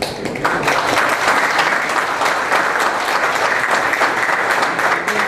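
Audience applauding: a dense, steady run of many hands clapping that starts about half a second in.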